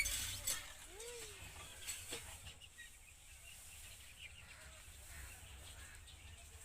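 Quiet rural outdoor background with a few faint knocks near the start and another about two seconds in, and one short rising-and-falling bird call about a second in.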